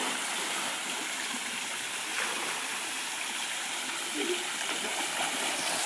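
Steady rushing of flowing water, an even hiss without a break.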